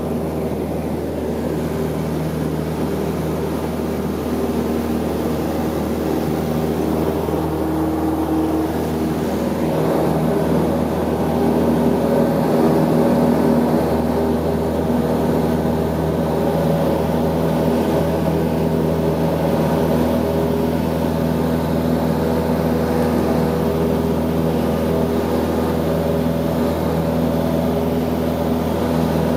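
Cessna Skyhawk's piston engine and propeller droning steadily inside the cabin through the takeoff roll and climb-out, getting a little louder about ten seconds in and then holding steady.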